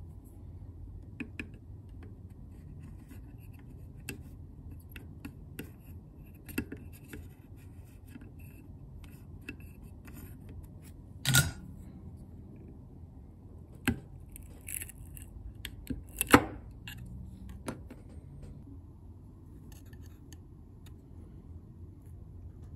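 Light scattered clicks and scrapes of a screwdriver and soldering iron working on a battery circuit board, as a cell is pried away from its heated solder joints. Three louder sharp clicks come in the second half, the last the loudest.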